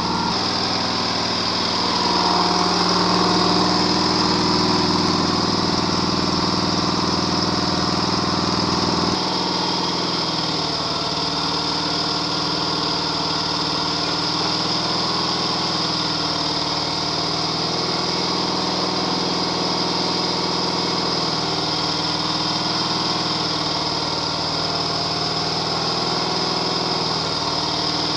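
Sears Super Sport riding mower's engine running steadily. It is louder for the first nine seconds or so, then drops a little at a sudden change and runs on evenly.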